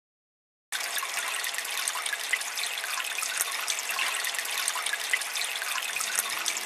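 Water splashing steadily, a dense patter of many small drops and splashes, starting abruptly about a second in.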